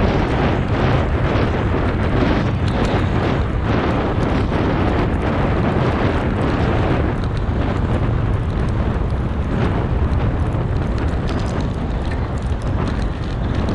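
Steady, loud wind buffeting a moving bike-mounted camera's microphone, over the rumble and crunch of a knobby bicycle tyre rolling fast on a dirt trail.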